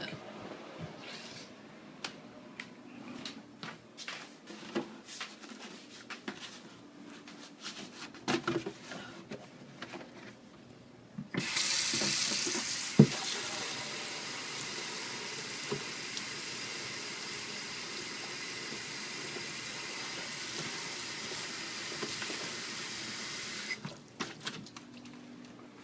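Scattered clicks and knocks of handling, then a water tap turned on about eleven seconds in, running steadily for about twelve seconds while filling a glass of water to drink, and shut off near the end.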